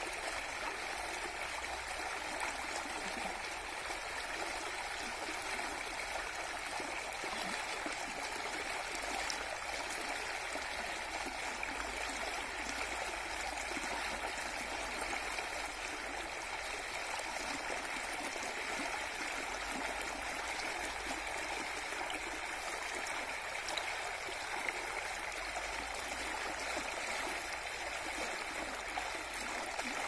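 Small muddy stream flowing steadily, the water churning and bubbling into white froth as it rushes past. An even, unbroken wash of moving water.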